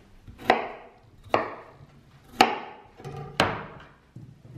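Chef's knife chopping through a raw potato and knocking onto a wooden cutting board: four sharp knocks about a second apart.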